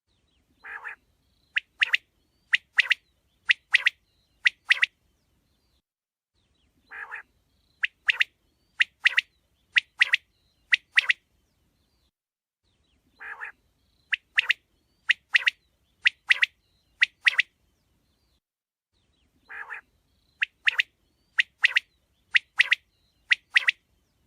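Quail calling: a short, lower, raspy note followed by a quick run of sharp, high, paired calls. The same phrase repeats four times, about every six seconds, with silence in between.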